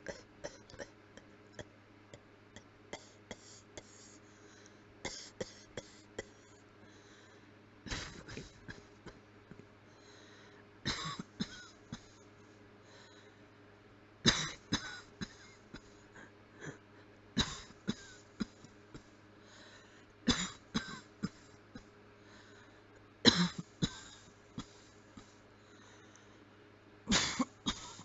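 A person coughing with the mouth closed. Light, scattered coughs come first, then from about eight seconds in, bouts of several short coughs about every three seconds.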